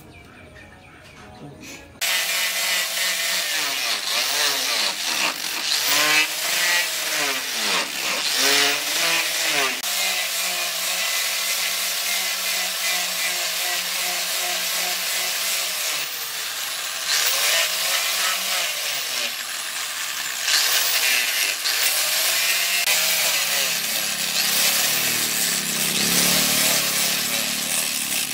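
Electric angle grinder with a sanding disc grinding and shaping a wooden knife handle, starting about two seconds in. Its whine repeatedly dips and recovers as the disc is pressed into the wood.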